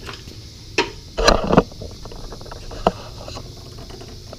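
A few sharp knocks and clanks of metal parts and tools as a suspension end link is fitted, with the loudest cluster of knocks a little over a second in.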